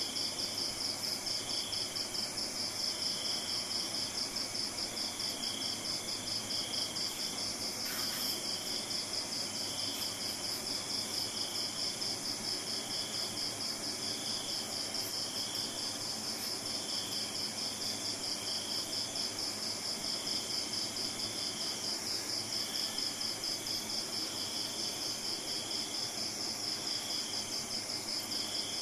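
Insects chirping steadily: a fast, even pulsing trill with a lower chirp repeating about once a second over it. A single brief click about eight seconds in.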